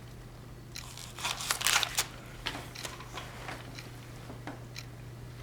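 Short rustling, crinkling noises and scattered clicks, busiest between about one and two seconds in, over a steady low hum.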